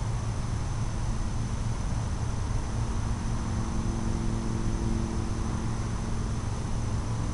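Steady outdoor evening ambience: a constant high-pitched cricket drone over an even hiss and low rumble, with a faint low hum joining about three seconds in.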